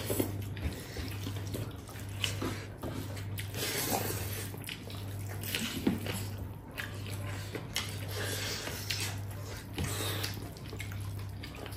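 Close-miked eating sounds: wet chewing and smacking of pork trotters with rice and gravy, in short irregular bursts over a steady low hum.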